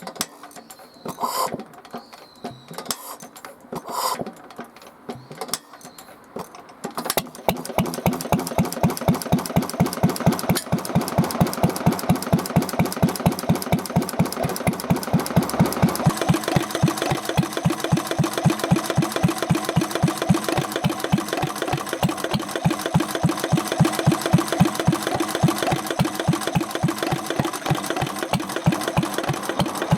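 Old Japanese stationary engine (hatsudōki): a few scattered knocks and clicks, then it starts about seven seconds in and runs with a steady, even firing beat that gets fuller about halfway through. This is a test run after adjusting the connecting-rod bearing shims, to check the engine's abnormal knocking noise.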